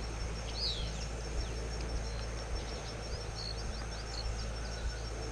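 Outdoor ambience: a small bird giving a string of quick chirps and short whistled notes over a steady high insect trill and a low background rumble.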